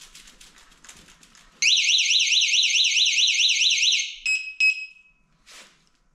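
A shock- and motion-triggered bicycle alarm is set off. After some faint clicking and rattling, a loud electronic siren warbling rapidly up and down sounds for about two and a half seconds, then cuts off. Two short beeps follow.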